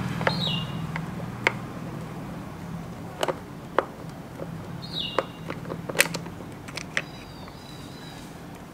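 Scattered small clicks and taps of a screwdriver and plastic parts as hands work at a motorcycle's intake air temperature sensor and its connector. A bird chirps briefly twice in the background.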